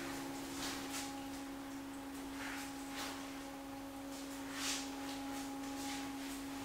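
A steady hum held at one pitch, with fainter overtones, over a faint hiss and a few soft swishes.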